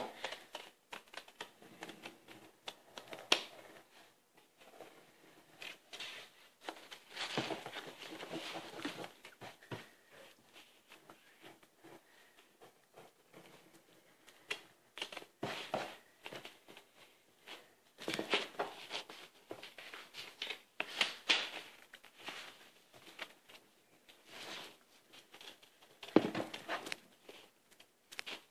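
Pencil scratching across paper in intermittent strokes, with rustling of the sheet under the hands and a few light taps.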